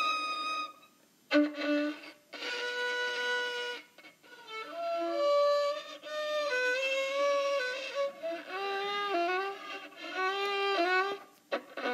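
Solo viola played with the bow: a string of separate held notes, then, from about two-thirds of the way in, notes that slide up and back down in pitch as creepy sound effects.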